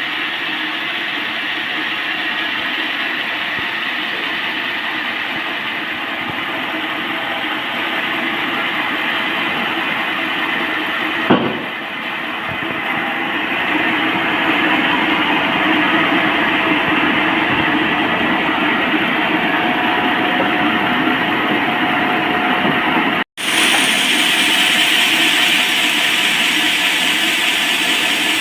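Band sawmill sawing a large teak log: a steady, loud run of blade and machine noise with a sharp knock about 11 seconds in, growing a little louder from about 14 seconds. The sound cuts out for an instant near 23 seconds.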